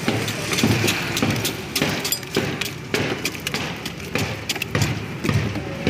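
Street noise: a low rumble with many short knocks and clicks scattered through it.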